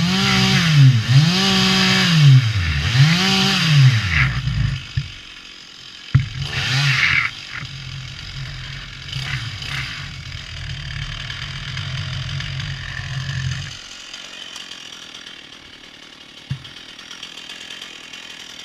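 Chainsaw cutting into a dead tree: the engine speed sags and recovers about once a second as the chain bites. About four seconds in it drops off, then runs on at a steady low speed until it cuts off about two-thirds of the way through. A single short knock follows near the end.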